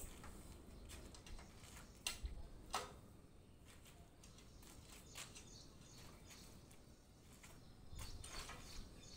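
Faint, scattered metallic clicks and taps as the nuts on steel column formwork are loosened by hand, with a couple of sharper clicks about two and three seconds in.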